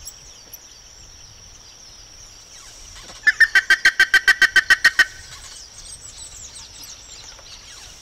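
Plumbeous ibis calling: a loud, rapid series of about a dozen evenly spaced notes, roughly seven a second, lasting about two seconds and starting about three seconds in. A steady high insect drone and faint small-bird chirps continue underneath.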